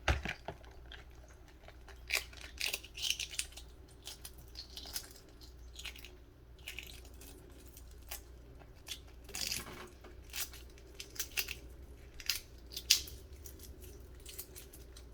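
Shell of a boiled egg cracking and tearing away as it is peeled by hand: irregular small crackles and scrapes, a few louder snaps among them.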